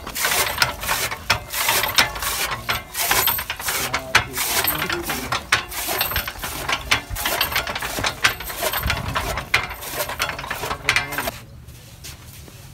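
Hand-cranked flywheel chaff cutter chopping green fodder: a rapid, irregular clatter of gears and blade strokes, stopping abruptly near the end.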